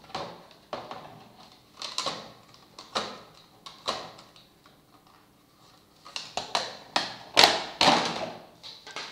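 Stiff clear plastic packaging tray being handled and pried out of a product box: a series of crackling clicks and crinkles, spaced about a second apart at first and bunched close together near the end.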